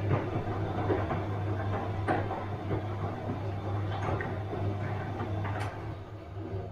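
Bosch washing machine running: a steady low hum with a continuous light rattle, and a sharp knock about every two seconds as the load tumbles in the drum.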